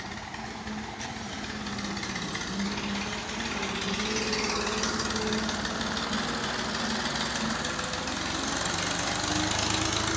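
Farm tractor's diesel engine chugging with a fast knocking beat as it tows a loaded trolley past close by, getting louder over the first few seconds as it draws alongside.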